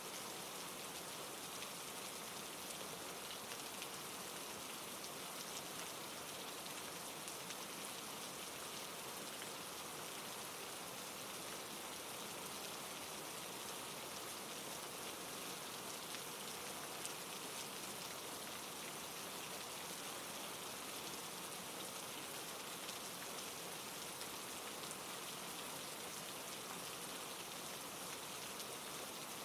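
Steady rain falling, a continuous hiss with fine pattering drops on a surface.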